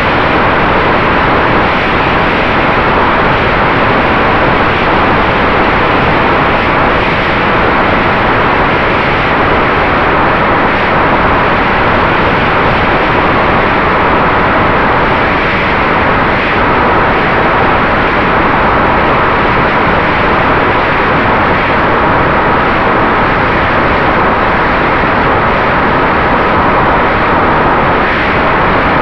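Mini Drak FPV racing quadcopter's motors and propellers running in fast flight, heard from its onboard camera: a loud, steady, noisy buzz with faint steady whine tones through it.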